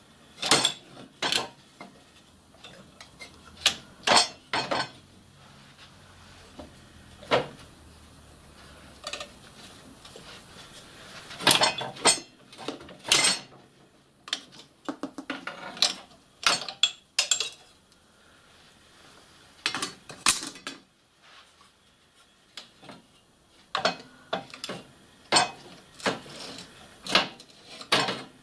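Irregular metallic clinks and clanks as the steel wheels, brake hangers and linkage of a miniature steam locomotive are handled and lifted out of its frame. The sharp knocks come in clusters, with a few quieter seconds between them.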